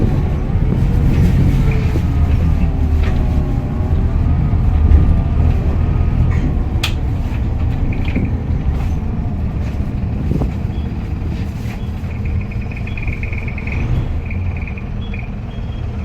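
Optare Solo SR single-deck bus's diesel engine running with its turbocharger whistling: a wavering whine in the first few seconds, then a higher whistle that comes and goes in the second half. Wind rumbles on the microphone underneath.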